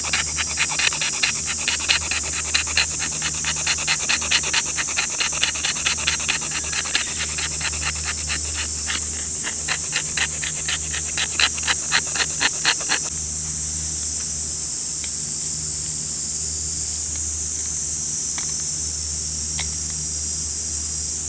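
Cicadas singing: a steady, high-pitched drone throughout, with a nearer cicada calling in rapid, even pulses that stops abruptly about two-thirds of the way through.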